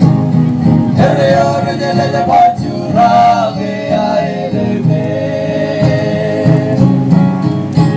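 A group of voices singing a song live, with instruments playing underneath.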